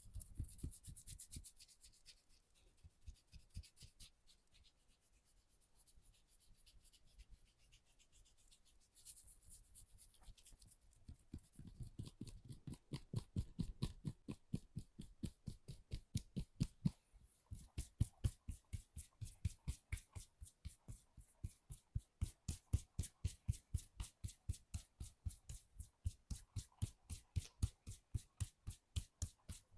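Massage hands tapping rhythmically on the body, about three to four light strikes a second, becoming regular and louder from about twelve seconds in.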